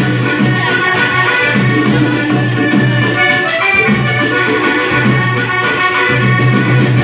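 Accordion-led Panamanian folk dance music, with percussion keeping a steady, even beat under the held accordion notes.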